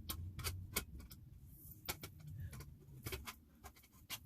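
Irregular light clicks and knocks of garment-rack tubes and fittings being handled and forced together during hand assembly.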